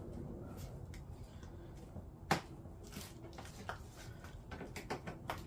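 Small clicks and light knocks from a screwdriver and screws worked by hand into the plastic body parts of a kids' ride-on car, with one sharp click a little over two seconds in and several more near the end.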